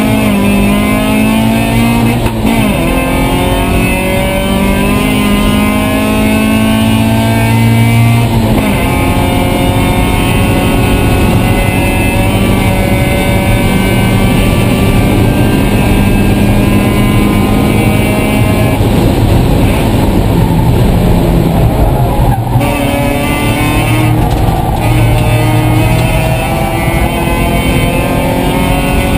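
Mazda Miata race car engine heard from inside the cockpit under hard acceleration. The revs climb steadily, then drop sharply at gear changes, about two seconds in and again around eight seconds in. A rougher stretch with lower engine tone comes near the three-quarter mark before the revs climb again.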